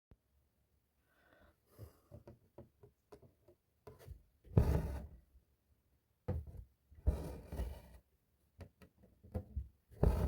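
Hand-embroidery handling sounds: soft taps and clicks of the hoop, needle and fabric, with longer rubbing swishes of thread or cloth about 4.5 s, 7 s and 10 s in.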